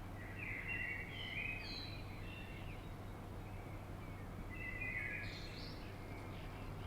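Wind rumbling steadily on the microphone, with a songbird singing two short warbled phrases, one at the start and one about halfway through.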